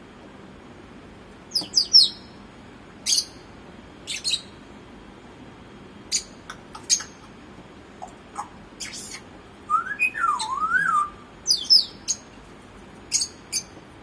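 African grey parrot giving a scattered string of short, high chirps and squeaks, with one warbling whistle that rises and falls about ten seconds in.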